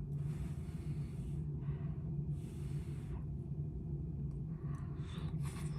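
A person's breathing: three noisy puffs of breath, the first about a second long, over a steady low hum.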